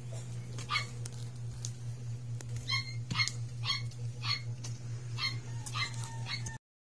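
A dog yipping in short, repeated calls, about two a second, over a steady low hum.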